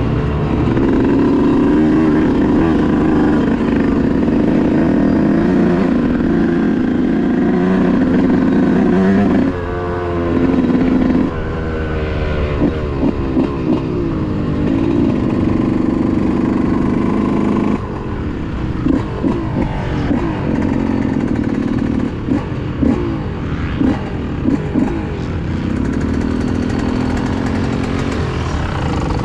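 Yamaha YZ125 single-cylinder two-stroke dirt bike engine, revving hard while riding, its pitch dropping and climbing through the gears. In the second half the engine falls back and gives a series of short throttle blips, then pulls steadily again near the end.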